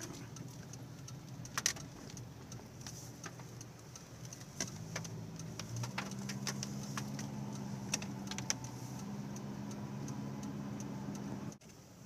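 Car running slowly over a snowy road, heard inside the cabin: a low engine and road hum that settles into a steadier drone about halfway through, with scattered sharp clicks and ticks. The sound drops off suddenly just before the end.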